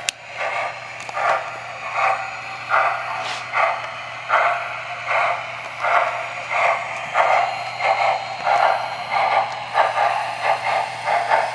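Model Erie Triplex steam locomotive's onboard sound system playing steam chuffs through its small speaker as the engine pulls away slowly, the chuffs steady and quickening from a little over one a second to about two a second.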